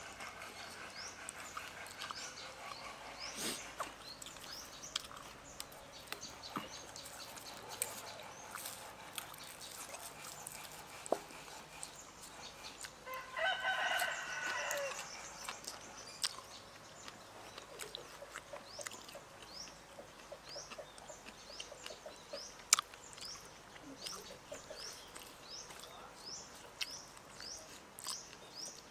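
A rooster crows once about halfway through, a single call of about two seconds. Behind it a small bird repeats short rising chirps, and there are scattered light clicks.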